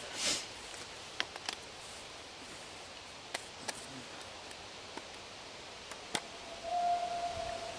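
Dry twigs and bark strips being handled and laid down: a rustle at the start, then scattered sharp clicks of sticks knocking together. Near the end a brief steady tone sounds for about a second.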